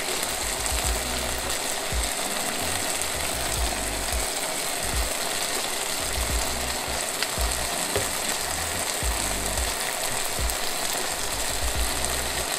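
Marinated chicken breasts sizzling steadily in a hot nonstick frying pan, with an on-and-off low hum underneath.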